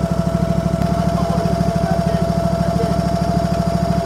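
The small engine of a stand-on shed-moving machine running steadily, with an even pulsing note and a steady whine above it.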